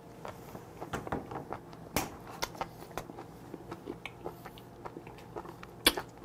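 Close-up chewing of a mouthful of live small octopus: irregular clicks and smacks from the mouth, the loudest about two seconds in and near the end.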